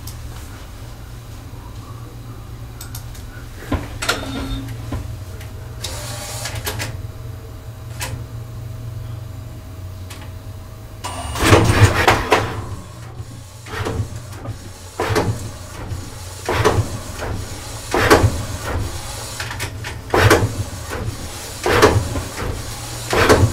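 FreeJet 330TX Plus direct-to-garment printer running on its own, an uncommanded malfunction. Under a steady hum, a motor whine holds for several seconds, then from about halfway a loud clatter of carriage and platen movement repeats roughly every one and a half seconds.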